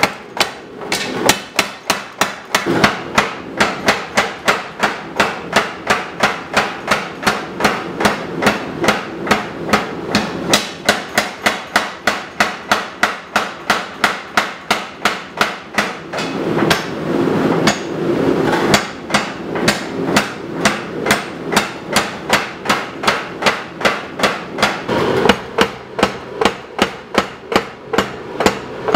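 Century-old 50 lb Little Giant mechanical power hammer pounding a red-hot steel knife blank between its dies in a rapid, even rhythm of about three blows a second. The beat blurs briefly about two-thirds through.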